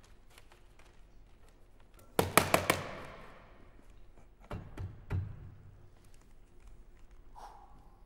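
A quick run of five or so sharp knocks about two seconds in, with a short ringing tail, then three duller thumps about two seconds later: a performer striking and pressing on a wooden stage box while fashioning a makeshift reed pipe. A brief faint tone sounds near the end.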